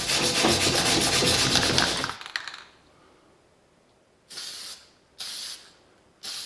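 MIG welder arc crackling steadily for about two seconds over a low hum, then three short bursts of arc, like quick tack welds on thin sheet steel.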